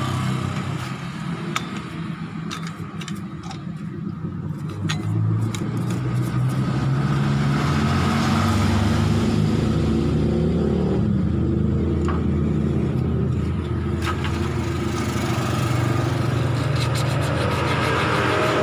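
A motor vehicle engine running steadily, somewhat quieter for the first few seconds and then louder, with a few light clicks over it.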